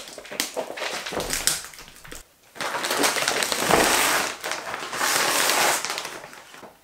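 Clear plastic wrap crinkling and rustling as a rolled wool rug is pulled out of it, quieter at first, then in two loud stretches after a short pause, fading near the end.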